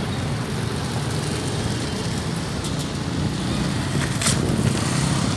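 Street traffic: a steady low rumble of vehicle engines on the road, with a brief hiss about four seconds in.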